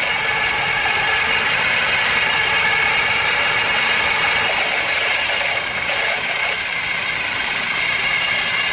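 Car engine idling steadily with its belt-driven accessories running, heard up close in the engine bay. The alternator is among them; the owner takes its noise for a broken bearing letting the rotor run off centre and rub on the housing, and the alternator is no longer charging the battery.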